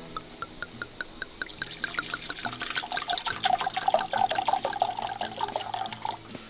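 Liquid being poured into a cup, a run of splashing and trickling that builds through the middle, over soft background music.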